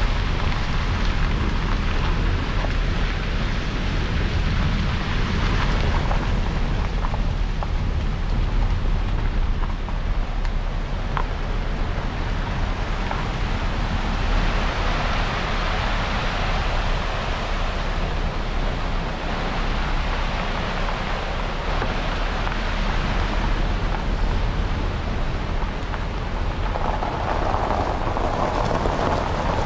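Steady rushing of a mountain river's rapids over rocks, swelling louder for a few seconds after the middle, over a low steady rumble.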